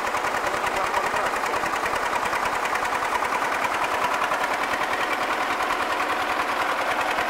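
Diesel engine running steadily nearby with a rapid, even clatter.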